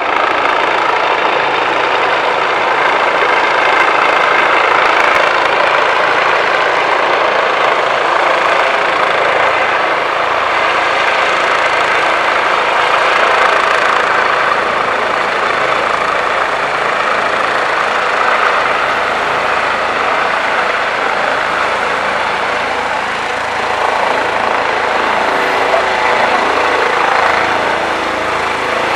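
Police Eurocopter EC135 helicopter flying low and close, its rotor and twin turbine engines making a loud, steady rush and whine.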